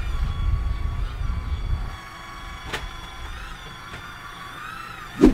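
Small battery-powered pump of a handheld mosquito sprayer running with a steady high whine that wavers slightly in pitch. Low gusty wind rumble runs under it for the first two seconds, a sharp click comes near the middle, and a short thump comes near the end.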